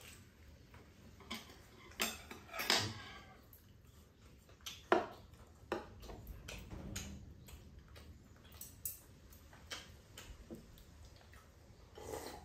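Metal chopsticks clicking and tapping against dishes and a metal serving platter while eating, in scattered single clicks with a few sharper ones standing out.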